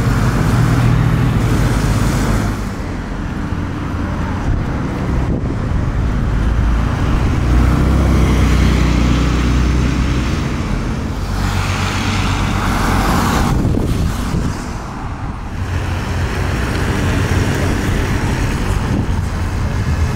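Sports cars driving past one after another, their engines and exhausts swelling and fading as each goes by; among them a Porsche 911 and a BMW saloon.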